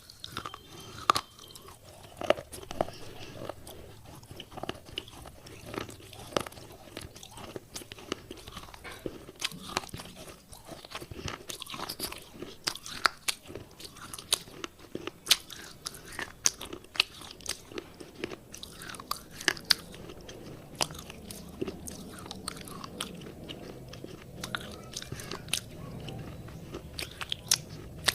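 Close-up biting and chewing of wet clay pot pieces: many sharp, irregular crunches, several a second, with softer grinding between them.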